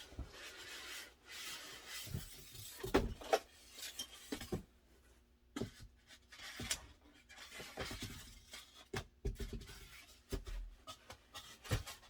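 Cardboard and plastic packaging being handled: on-and-off rustling and scraping with scattered light knocks as a boxed cutting machine is worked free of its packing.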